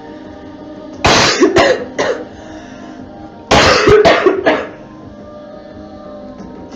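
A girl coughing in two fits, about a second in and again about three and a half seconds in, each a run of about three coughs.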